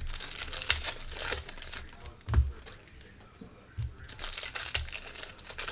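Foil trading-card pack wrappers crinkling and tearing as packs are opened and handled. Two dull thumps on the table come about two and a half and four seconds in, the first the loudest.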